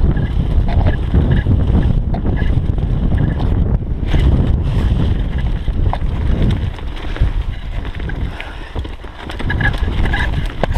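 A mountain bike rolling fast down a leaf-covered dirt trail: steady wind rumble on the camera's microphone mixed with tyre noise and rattling clicks from the bike. The noise eases for a couple of seconds past the middle, then picks up again.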